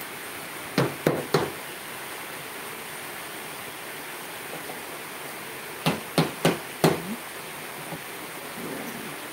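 Sharp knocks of stainless steel cookware being handled: three close together about a second in, then four more around six seconds in, over a steady hiss.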